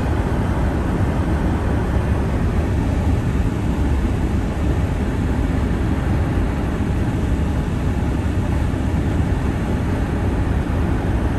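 Car driving along a snow-covered street, heard from inside the cabin as a steady low rumble of road and wind noise.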